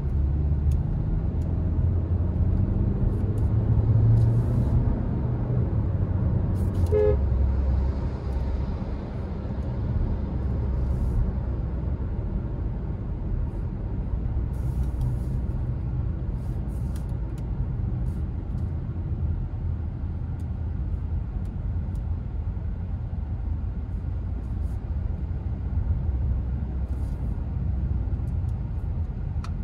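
Skoda Kodiaq heard from inside its cabin while driving in traffic: a steady low engine and road rumble. About seven seconds in, a car horn gives one brief toot.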